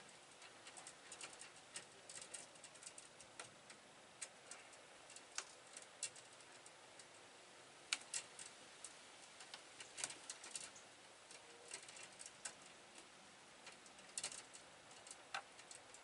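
Faint, irregular light clicks and ticks over a low steady hiss.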